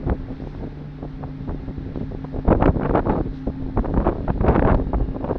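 Wind buffeting the microphone in irregular gusts, over the steady low hum of the ferry's engines. The strongest gusts come about halfway through and again near the end.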